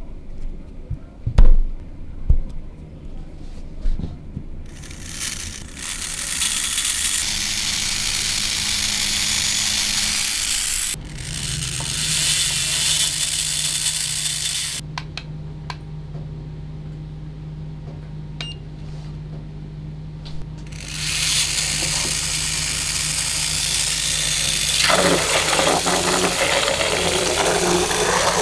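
Clicks of plastic parts being handled and fitted, then a toy-boat drive of small 3 V DC motors geared to one propeller shaft running with a steady whir. Near the end the propeller churns the water in a basin, adding splashing and bubbling.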